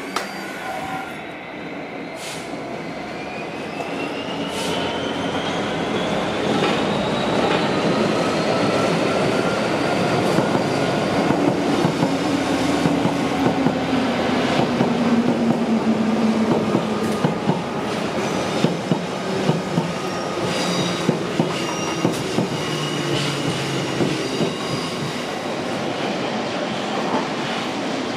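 London Underground Bakerloo line 1972 Stock train running in over the junction's pointwork, growing louder as it nears. A whine rises in pitch in the first few seconds, then the wheels click rapidly over the rail joints and points with some squealing in the middle stretch.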